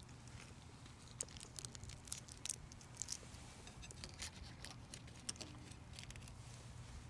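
Faint, irregular crackles and clicks of communion bread being chewed and then handled at the table close to a microphone, over a low steady hum.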